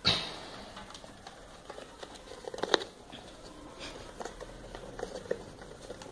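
Handling noise from a phone's retail box contents, meaning the packaging and accessories such as the USB cable and charger: a sharp knock at the start, then scattered light clicks and rustles.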